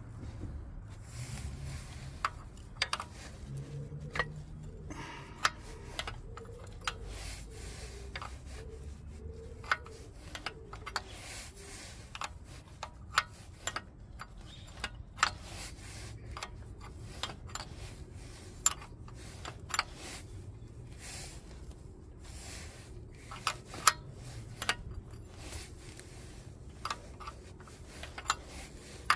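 Steel combination spanner working the mounting bolts of a motorcycle oil pump: a string of irregular sharp metal clinks as the wrench is fitted, turned and refitted on the bolt heads. A low rumble runs underneath.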